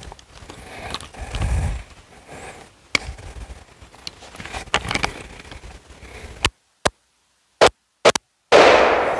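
Handling of an AR-style rifle with a drum magazine, scraping with a few sharp clicks, then from about six and a half seconds in a quick string of about five gunshots in under two seconds, the last one loudest and ringing out.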